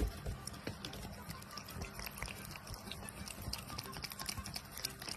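A cat licking food from a hand-held plastic cup: rapid, irregular wet clicks of its tongue, with a low thump right at the start.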